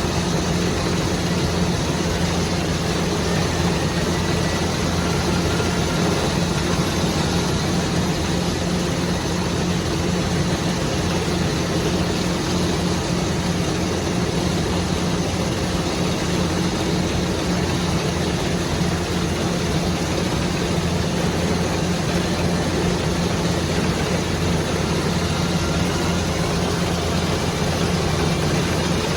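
Rice harvesting machine, likely a combine harvester, running steadily under a constant engine hum with a broad mechanical whirr over it.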